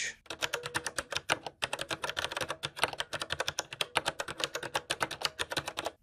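Typing on a Kinesis Advantage2 ergonomic keyboard fitted with Cherry MX Brown tactile mechanical key switches: an uneven stream of sharp key clicks, several a second.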